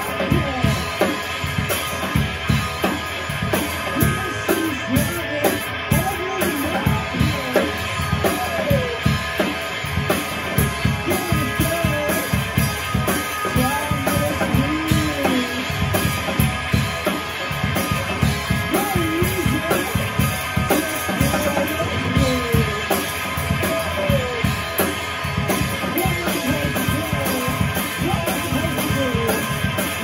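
A two-piece rock band playing live: an electric guitar through a Marshall amp over a full drum kit keeping a steady beat on kick, snare and cymbals.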